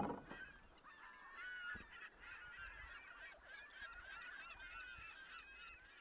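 A flock of birds calling, many short overlapping goose-like honks and calls that keep going throughout, heard faintly. A brief loud knock or splash right at the very start.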